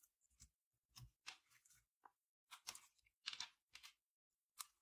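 Clear slime being pressed, folded and poked by hand: sticky clicks and wet, crackling squelches in about ten short bursts with brief silences between.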